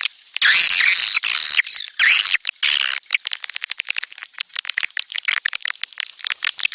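Swiftlets calling: a dense, high chirping chatter for the first couple of seconds, then a long run of rapid clicks with a thin whistle over them. This is a swiftlet-farm call track of breeding calls, played to lure the birds to roost.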